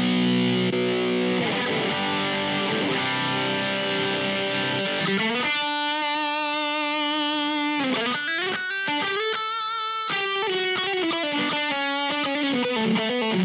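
Electric guitar played through an IK Multimedia X-Drive distortion pedal preset. Distorted chords ring for the first five seconds or so, then give way to sustained single lead notes with vibrato.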